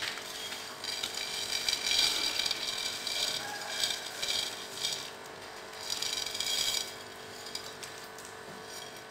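Crisp fried gram-flour fritters (phulkiyan) rattling and rustling against a ceramic plate as a hand pushes them off into a bowl of yogurt, in several short spells.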